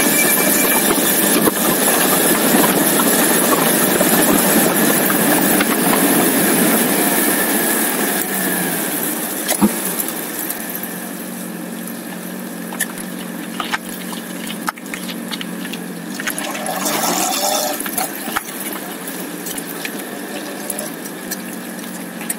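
Motorcycle running while slowing down, with wind and road noise rushing over the camera microphone. After about eight seconds the rush fades, leaving a steady low engine note at slow speed, with a few small clicks and knocks.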